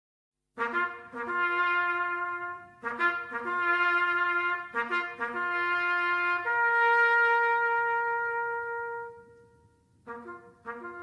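Solo brass bugle call: separate notes starting about half a second in, some short and some held, with a long sustained note in the middle. It is played as part of the Anzac remembrance ceremony.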